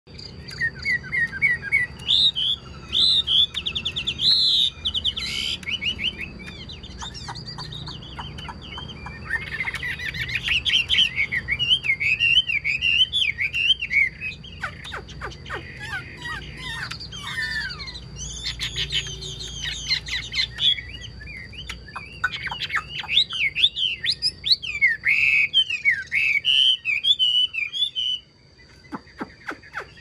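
Chinese hwamei singing a long, varied song of fast whistled phrases and trills, with brief pauses and a short break near the end. A faint steady high tone runs underneath.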